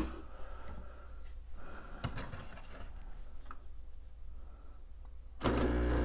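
Espresso machine's pump switching on about five and a half seconds in and buzzing steadily as a shot is pulled. Before it, only a click and a few faint handling knocks.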